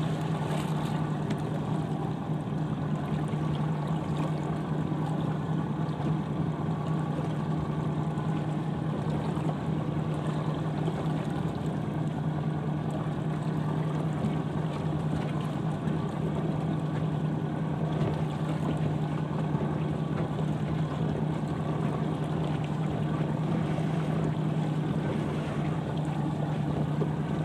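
Motorboat engine running at a steady pitch, a constant low drone that does not change over the whole stretch.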